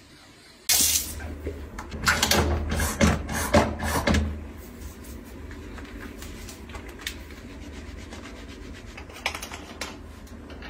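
Soapy hands being rubbed and washed at a bathroom sink, with a run of sharp wet clicks and rustles over a steady low hum. Near the end, a few clicks as a plastic toothpaste tube's cap is opened.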